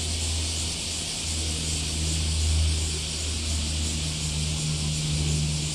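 Steady low mechanical hum with an even high-pitched hiss above it, the hum dipping briefly about a second in and again near the end.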